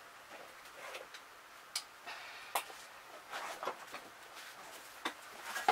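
Handling noises: a handful of sharp clicks and short rustles as a pair of pliers is picked up and someone settles into a fabric armchair.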